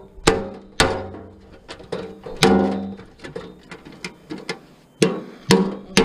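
Metal clanking as a barbecue is knocked apart: about a dozen sharp, irregularly spaced strikes, each ringing briefly, the loudest about two and a half seconds in and again near five seconds.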